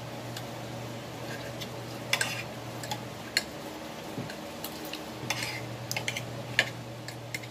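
Metal spoon and fork clinking and scraping against a plate, with a few sharp clicks, over a steady low hum that drops out for a couple of seconds in the middle.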